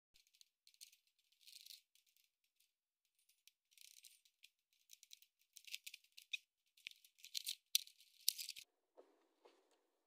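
Irregular rattling and sharp clicks of hard plastic and a metal screwdriver as the trim cover under a car's steering column is pried loose, loudest with a few sharp snaps about seven to eight seconds in. A softer, duller scraping follows near the end.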